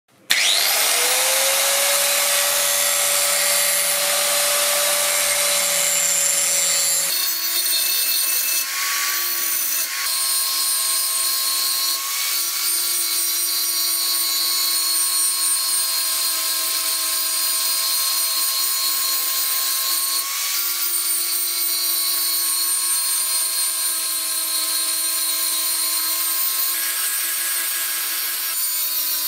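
Electric grinder switching on, its whine rising as the motor spins up and then holding steady. About seven seconds in the pitch drops and stays lower, with a harsh hiss, as it grinds the spring-steel knife blank.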